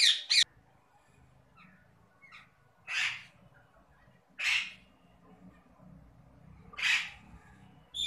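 Parakeets squawking. There is a quick burst right at the start, then three single loud squawks a second or two apart, and another at the end.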